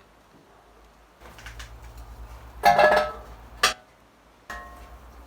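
Metal parts knocking together as a brake caliper is worked loose: one loud clatter with a short ringing note about two and a half seconds in, then a single sharp click about a second later.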